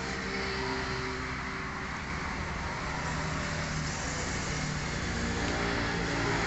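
A motor vehicle engine running steadily, its low hum shifting slowly in pitch over a constant hiss.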